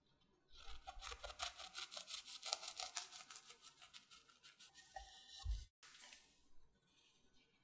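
Serrated bread knife sawing through a crisp baked choux pastry shell filled with cream: a rapid run of scratchy, crunching strokes, followed by a short soft thump about five and a half seconds in.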